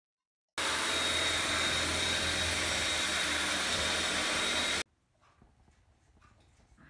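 Cordless drill running steadily while boring a hole into a tiled wall, with a thin high whine over the motor noise; it starts about half a second in and cuts off suddenly after about four seconds. Faint clicks and handling follow.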